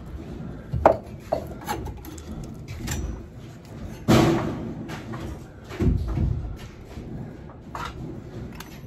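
Irregular knocks, rubbing and thuds of work handling in a wood-framed space. The loudest is a heavy thud about four seconds in, with low bumps around six seconds.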